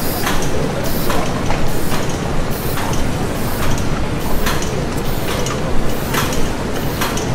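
Industrial machinery running: a steady low rumble with repeated mechanical strokes, each a short clank with a hiss, coming about once or twice a second at an uneven beat.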